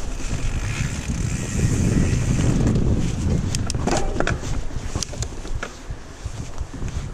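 Wind rushing over the camera microphone as a mountain bike rolls fast down a dirt singletrack. Sharp clicks and rattles from the bike come as it passes over roots and rocks, most of them between about three and five seconds in.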